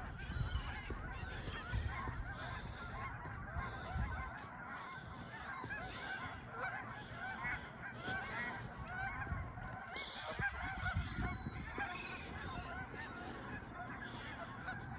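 A large flock of Canada geese honking continuously, many calls overlapping into one unbroken clamour.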